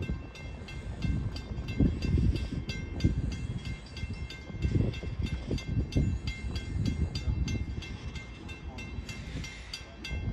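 Grade-crossing warning bell ringing in a fast, even rhythm of several strikes a second, over an uneven low rumbling that comes and goes.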